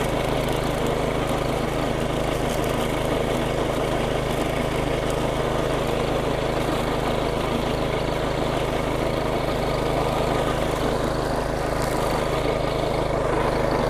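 Small gasoline engine of a DR Professional walk-behind string trimmer running steadily at its full-throttle setting, its cutting head driven by the engaged belt.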